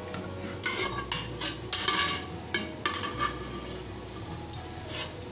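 Metal slotted spoon scraping and clinking against a steel pot, a flurry of clatters in the first three seconds and one more near the end.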